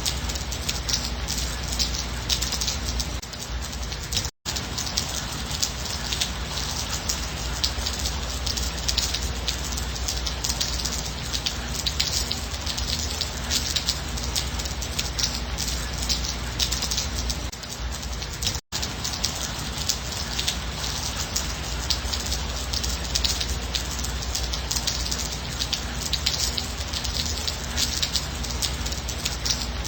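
Steady rain falling, many small drops hitting a surface in a dense, even spatter. Twice the sound drops out completely for an instant.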